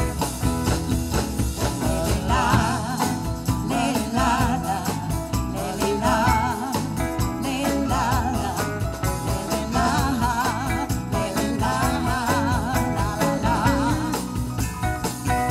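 Live rock band playing an instrumental passage: drums, bass and electric guitars, with cymbal shimmer and a lead melody line that wavers and bends in pitch.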